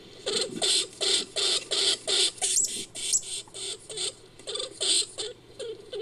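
Creature sound effect for a giant Norway lemming: a rapid run of short, raspy squeaks, about three a second, with a couple of thin high whistling squeals around the middle.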